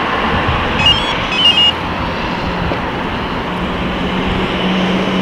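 Two short electronic chirps from a car's aftermarket alarm, the lock/unlock confirmation signal, about one second and a second and a half in, over a steady background rumble.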